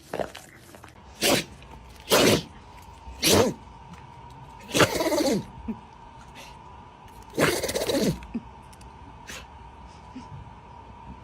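An animal makes five short, loud outbursts that sound like sneezes. The last two are longer and fall in pitch.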